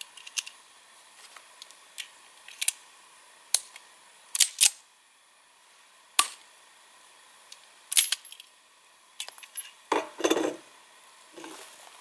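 A string of sharp, separate metallic clicks and clacks, a dozen or so spread out, from a handgun being handled and worked, with a short louder clatter about ten seconds in. No shot is fired.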